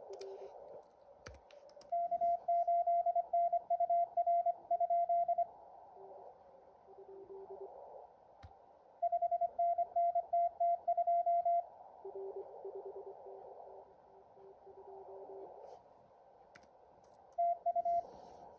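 Morse code from a contest-practice app that emulates a radio: a louder, higher-pitched tone keys out code in three spells, alternating with fainter, lower-pitched Morse from other simulated stations, over a steady hiss of simulated band noise.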